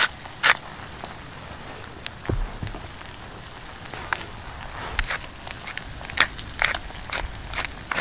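Eggs frying in a pan: a steady sizzle with sharp spitting pops, more of them in the second half, and one low thump a little over two seconds in.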